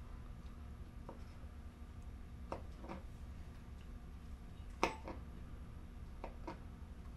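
Small kitchen knife cutting a grape on a plastic cutting board: a few scattered light clicks and taps of the blade on the board, the loudest about five seconds in, over a faint steady hum.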